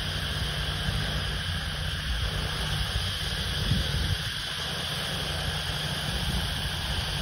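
Agricultural spraying drone's rotors giving a steady distant drone hum, mixed with wind buffeting the microphone.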